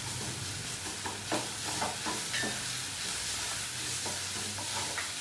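Chopped capsicum, onion and garlic sizzling in hot oil in a black kadhai, with a steady hiss, while a spatula stirs them, scraping and clicking against the pan at scattered moments.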